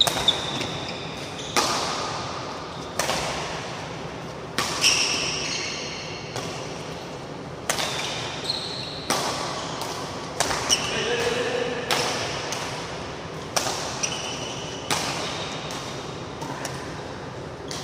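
Badminton rackets striking a shuttlecock in a fast doubles rally, a sharp crack about every second and a half, each echoing in the hall, with short high squeaks of court shoes between the hits.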